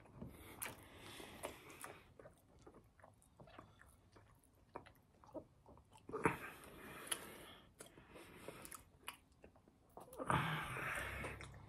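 Close-up mouth sounds of someone eating: chewing with frequent wet clicks and lip smacks. A longer wet noise comes about six seconds in, and another about ten seconds in as fingers are sucked clean.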